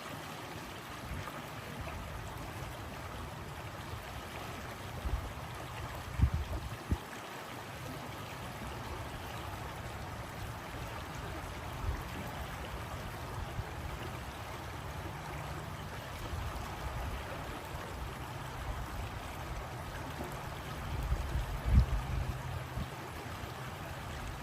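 Flowing water of a stream, running steadily, with a few brief low bumps about six seconds in and again near the end.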